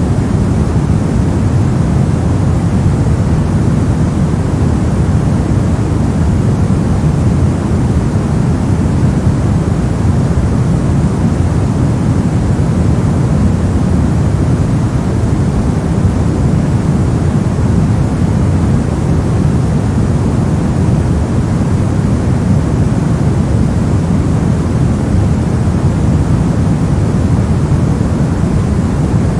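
Steady, unchanging generated white noise for sleep, deep-sounding rather than hissy, with most of its weight in the low end.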